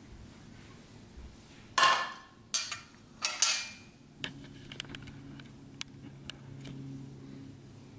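A plate and fork clattering on a tabletop as the plate is set down: two sharp clatters about two and three and a half seconds in, then a few light clinks. A low steady hum comes in about halfway.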